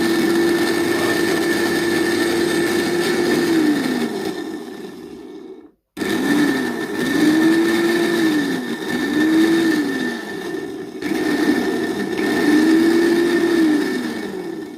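Moulinex blender motor test-run after repair: it runs at full speed with a steady whine, winds down and stops, then is started again in several short bursts, each speeding up and slowing down. It runs smoothly, with no rattle from the unbalanced part that caused the vibration and sparking.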